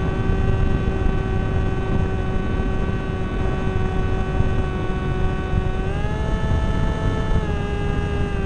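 Zagi v4 flying wing's motor and propeller heard from its onboard camera: a steady whine with several overtones, stepping up in pitch about six seconds in and easing back down a second and a half later. Rumbling wind noise on the camera's microphone runs underneath.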